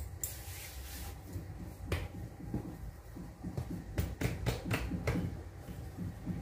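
Hands patting and pressing a folded block of puff pastry dough on a floured countertop. Soft slaps and light taps are scattered through, with several in quick succession about four seconds in, over a low steady hum.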